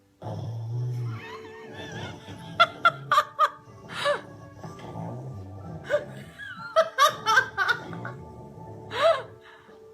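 Background music playing under repeated short bursts of laughter. The laughs cluster about two and a half to four seconds in and again around seven seconds, with a last loud one near nine seconds.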